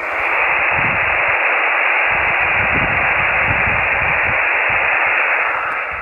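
Steady hiss of receiver noise from a microwave amateur radio transceiver's loudspeaker, with no signal in it: the station is listening for a distant station's carrier or test signal and is not hearing it. The hiss fades away near the end.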